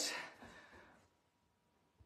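A woman's breathy exhale, catching her breath after hard exercise, fading out within the first second, then near silence.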